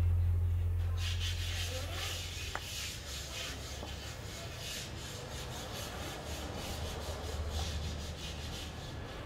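Traxxas TRX-6 G63 6x6 RC crawler driving over rough ground: a steady scraping, crunching rub of tyres and chassis on dirt and rock, with many small crackles. Background music fades out in the first second or so.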